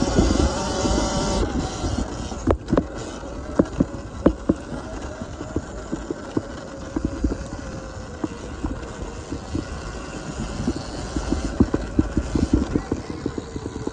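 Sur-Ron Ultra Bee electric dirt bike being ridden on a dirt trail: the electric motor's steady whine, with frequent sharp knocks and rattles from the bike over a low rumble.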